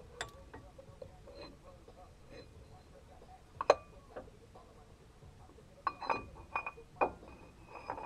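Scattered sharp metal clinks and knocks, some with a brief ringing, as metal tools and parts are handled. One louder clink comes about halfway in, then a quick cluster of clinks in the last couple of seconds.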